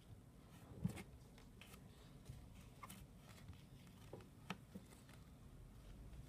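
Faint scattered taps and light rubbing from a hand rolling a ball of modelling clay on a wooden tabletop, with one sharper knock just before a second in.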